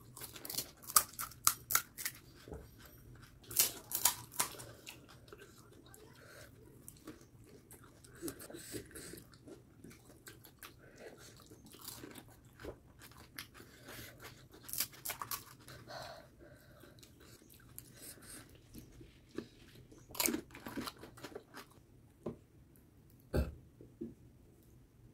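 Close-up chewing and crunching of pani puri (fuchka): crisp, hollow fried puri shells filled with green-chilli water cracking and being chewed. There is a dense run of crunches in the first few seconds, then slower, scattered chewing, and a single louder crack near the end.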